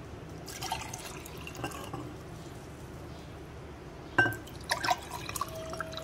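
Lemon-mint sharbat poured from a glass jug into drinking glasses, the liquid splashing and filling. A sharp clink of glass comes about four seconds in, with a few lighter clinks after it.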